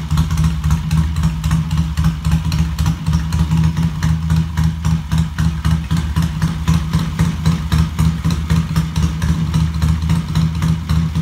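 Triumph parallel-twin motorcycle engine idling steadily with an even exhaust beat, running smoothly on a freshly rebuilt top end.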